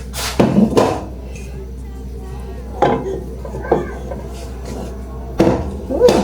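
Kitchen pots and utensils clattering: a few separate knocks and clanks of metal cookware being handled, with the loudest about half a second in and near the end, over a steady low hum.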